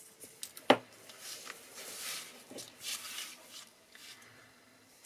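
A single sharp tap on the tabletop a little under a second in, then paper cardstock rustling and sliding as a small card panel is handled and laid onto a card.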